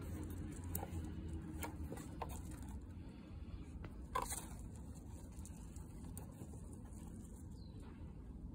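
Light taps and scrapes of wooden chopsticks and dubia roaches on a plastic tub, with one sharper tap about four seconds in, over a low steady rumble.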